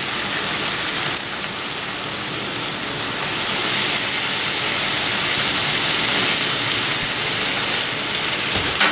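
White wine poured onto a hot griddle top around a pile of spinach, sizzling and hissing into steam, with chicken broth already steaming there. The hiss grows louder a few seconds in as more wine hits the hot plate.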